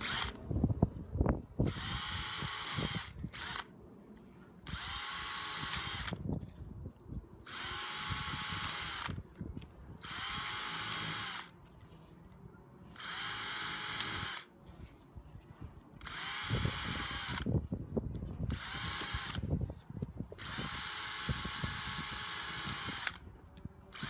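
A cordless drill bores holes through a thin plastic takeaway tub in about nine short runs, each one to three seconds long. Its motor whine rises in pitch as each run starts and falls away as it stops. Light knocks and handling noises come between the runs.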